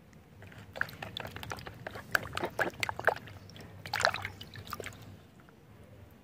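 Water sloshing, splashing and dripping in a plastic bucket as a muddy plastic dinosaur toy is dunked and swished clean by hand, in irregular splashes and trickles, the loudest about four seconds in.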